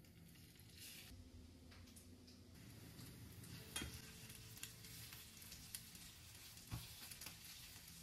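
Egg-soaked bread slices sizzling quietly as they fry in a pan, with a few sharp clicks of metal tongs against the pan as slices are laid in and turned, the clearest about four seconds in and near the seventh second.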